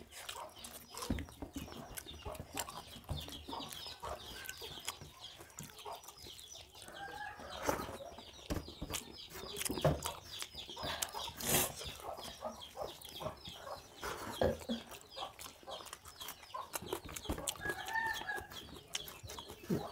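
Chickens clucking in the background, with short calls about a third of the way in and again near the end, over the clicks and chewing of people eating rice by hand from steel plates.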